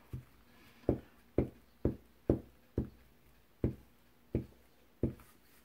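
About nine dull taps at uneven intervals as a glue stick is stroked over a paper cutout lying on a book page on a cutting mat.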